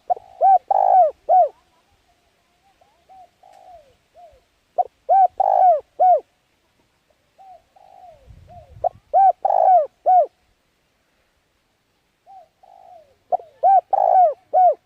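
A bird calling in repeated phrases of several short arched notes, the phrase coming four times about every four seconds, with softer single notes between.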